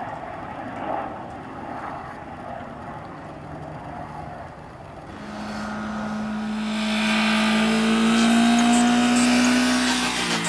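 A car driving: a hiss of road noise, then from about halfway an engine note that grows louder and rises slightly in pitch as it comes closer.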